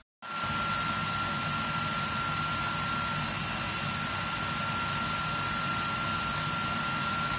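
Pot of slab pork fat boiling hard on a gas stove: a loud, steady rushing noise with a thin, steady whistle above it, starting suddenly just after the start.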